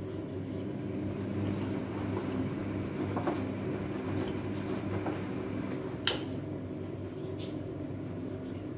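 Fagor front-loading washing machine running a rinse cycle, its drum turning with water and laundry over a steady motor hum. Scattered light clicks, with one sharp click about six seconds in.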